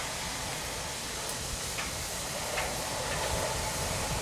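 Steam locomotive moving slowly, with a steady hiss of steam over a low rumble and a few faint clicks.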